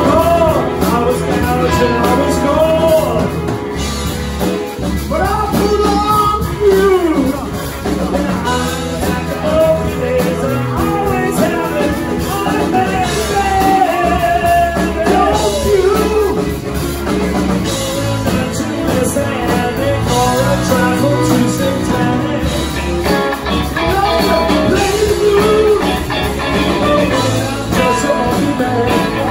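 Live rock band playing: a male singer over electric guitars, bass guitar and a drum kit.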